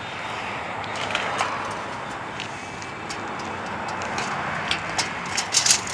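Steady background traffic noise, with a few light ticks about a second in and a quick run of sharp clicks near the end from a steel tape measure handled against a ribbed metal roofing panel.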